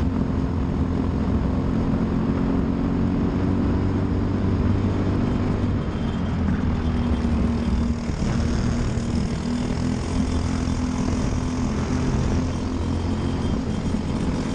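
Briggs & Stratton LO206 single-cylinder four-stroke kart engine running at racing speed, a steady drone with only small shifts in pitch.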